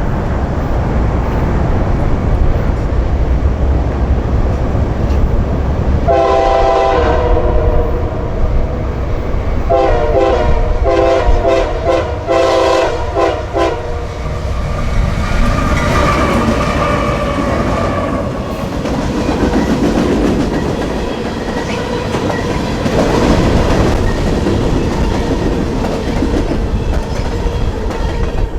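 Freight train on CSX track with locomotive engines rumbling and wheels clacking over the rail. The locomotive horn sounds a long blast of several notes about six seconds in, then a series of shorter and longer blasts a few seconds later, before the train rolls past.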